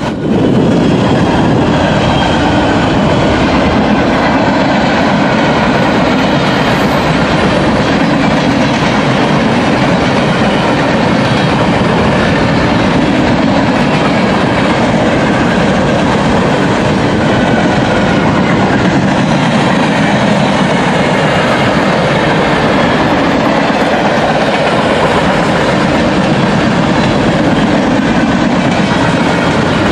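Freight train cars (boxcars and flatcars) rolling past at close range, their steel wheels clattering steadily on the rails in a loud, even noise.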